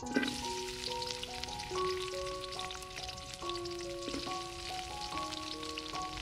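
Sliced shallots, lemongrass, chillies and garlic dropped into hot oil in a large steel wok, sizzling and crackling as they start to fry.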